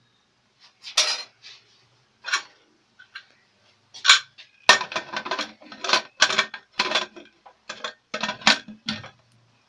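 Metal clanking of an aluminium pressure cooker: a few separate knocks, then from about five seconds in a dense run of scraping and clattering as the lid is fitted and twisted shut on the pot.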